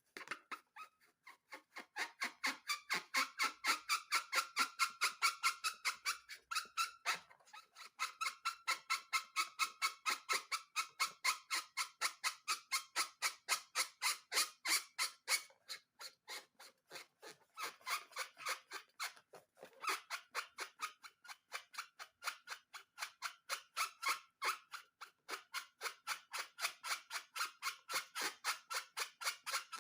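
Slime being squeezed and kneaded by hand in quick regular strokes, about five a second, each a wet squelch with a squeaky ring, broken by a few short pauses.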